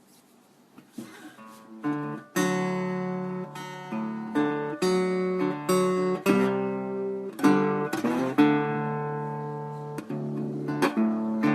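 Acoustic guitar playing solo: a few light plucks, then from about two seconds in, strummed chords that ring out and change every second or so.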